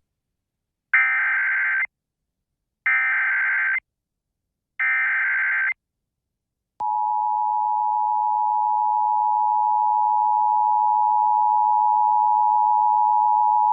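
Emergency Alert System broadcast tones: three short bursts of SAME header data, each just under a second and about two seconds apart, then about seven seconds in the steady two-tone attention signal begins and holds. This sequence opens a tornado warning alert.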